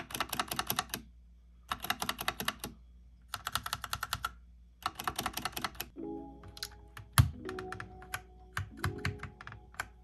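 Ajazz K870T mechanical keyboard with red linear switches: keys pressed rapidly in four bursts of about a second each, roughly ten strokes a second. From about six seconds in, music comes in under scattered further key clicks, with one heavier thump about seven seconds in.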